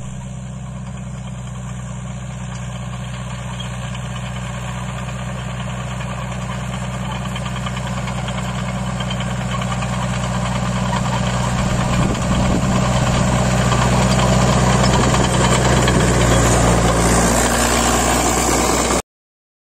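New Holland 82-85 crawler tractor's diesel engine running steadily, growing louder as the tractor drives toward and past close by, then cutting off suddenly near the end.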